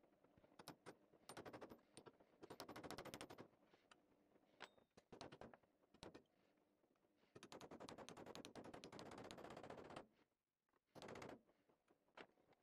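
A thin pointed steel tool scraping against the metal of an old can opener held in a vise, giving several bursts of rapid metallic clicking, the longest about two and a half seconds in the second half.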